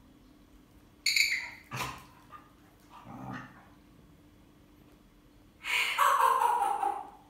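Bali dog giving play vocalizations: a short high yip about a second in, followed by a knock, then a longer, louder whine that slides down in pitch near the end.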